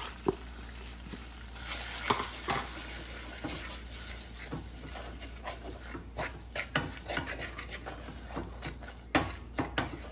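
Wooden spoon stirring and scraping ground spices through hot oil and ginger-garlic paste in a saucepan, with frequent small knocks of the spoon against the pan and a low frying sizzle underneath; the sharpest knock comes about nine seconds in.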